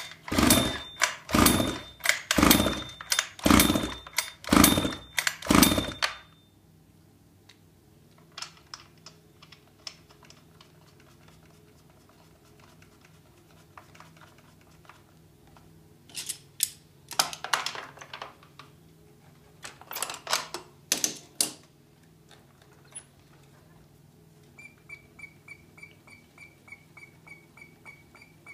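Small RC nitro engine being cranked by its pull-starter: a run of about six rough pulls at roughly one a second, then two shorter groups of pulls, without the engine catching. Near the end comes a faint fast ticking with a steady high tone.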